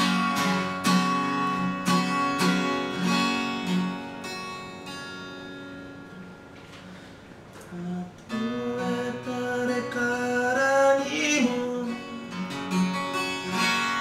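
Acoustic guitar strummed in a steady rhythm, then a chord left ringing and dying away around the middle. About eight seconds in the strumming starts again and a man sings over it.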